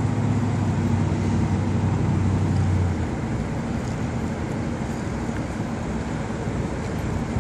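Low, steady engine drone over a constant rushing noise; the drone drops away suddenly about three seconds in, leaving the rush.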